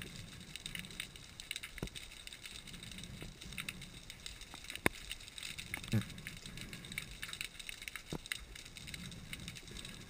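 Underwater crackle in a kelp forest: a dense, steady crackling of tiny clicks, with a few sharper single clicks, the loudest near the middle, and a short low thud about six seconds in.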